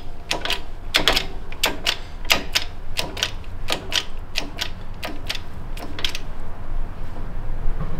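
Sharp metal-on-metal clicks and taps, roughly two a second, thinning out near the end, from fitting a piston pin through a piston and connecting rod at a shop press.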